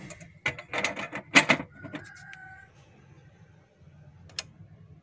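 Knocks and clatter from a mechanical bathroom scale being handled, several sharp knocks in the first second and a half with the loudest about a second and a half in. A brief faint high tone follows, and a single click near the end.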